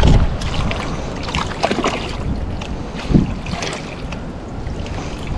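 Wind buffeting the microphone, heaviest at the very start and then easing, over a steady rush of wind and water, with scattered light clicks and knocks.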